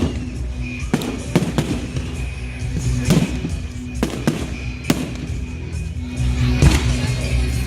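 Fireworks bursting in irregular sharp bangs, sometimes several within a second, over music playing steadily.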